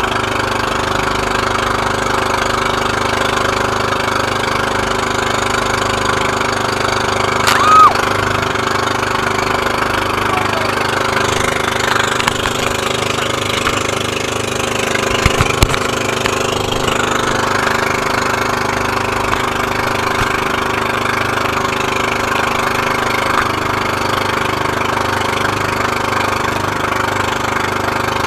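Engine of a motorized outrigger boat (bangka) running steadily under way at sea, with water rushing along the hull. A brief louder burst about eight seconds in.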